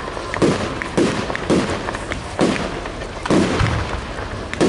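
Fireworks display: a string of about five sharp bangs, roughly one a second, with crackling in between.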